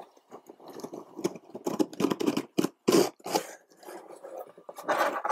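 Cardboard mailer box being opened by hand: the lid and flaps scraping and rustling in a string of irregular short bursts.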